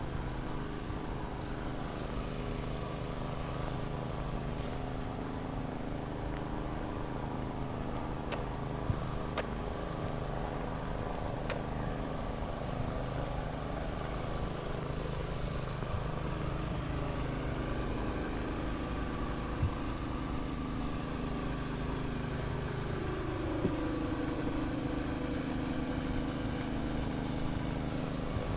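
A steady engine hum with several tones held together, its pitch sliding down and back up about three-quarters of the way through, with a few faint clicks.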